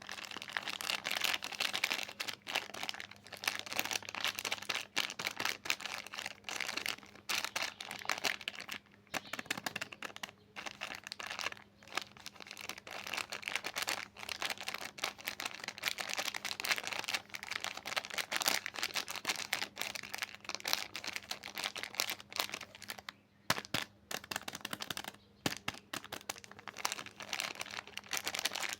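Soap wrappers being handled and unwrapped: a continuous crackling crinkle with brief pauses, with some tearing.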